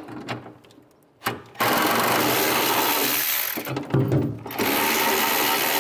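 Cordless power tool spinning bolts out, running in two steady bursts of about two seconds each with a short pause between.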